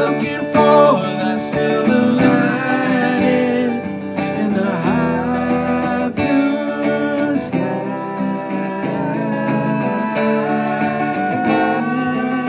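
Live duet of a hollow-body archtop electric guitar and an acoustic guitar playing an instrumental passage, with notes bent up and down in places over the steady chording.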